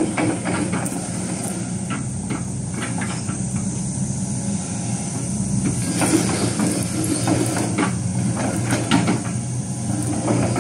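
Hitachi ZX120 crawler excavator travelling on its steel tracks: the diesel engine runs steadily under irregular clanks from the track links.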